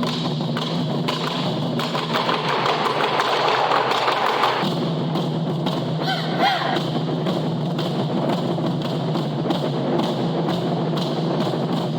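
Japanese taiko drums played by an ensemble: a dense, steady run of strikes.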